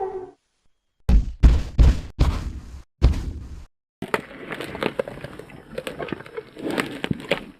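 Woolly mammoth sound effect: a handful of heavy, deep thuds spread over about two seconds, like a huge animal's footfalls. Then a busy crackling and snapping follows from about four seconds in.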